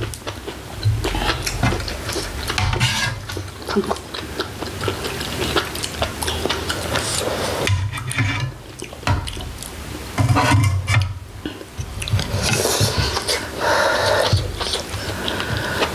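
Close-miked eating at the table: metal spoons and chopsticks clinking against bowls and the hotpot, with chewing sounds in between.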